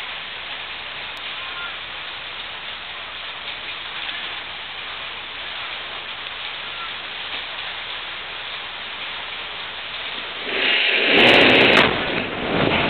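Steady static-like hiss of rain on the microphone. About ten and a half seconds in comes a sudden loud blast as the DoubleSShot, a 6-inch KNO3-sugar rocket motor, explodes on its static test stand. The noise then dies back down.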